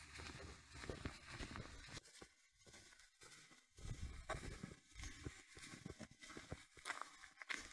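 Faint footsteps of a walker on a paved path, with light rustling from the handheld camera.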